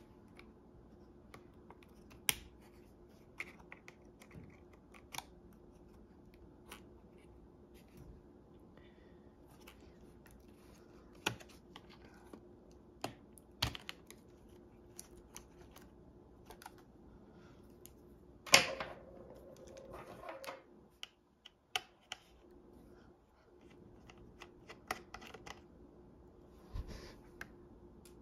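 Light, scattered clicks and taps of a plastic pry tool and fingers on the opened Lenovo x240 laptop's plastic and metal internals during disassembly. About two-thirds of the way through comes one louder knock followed by about two seconds of clatter.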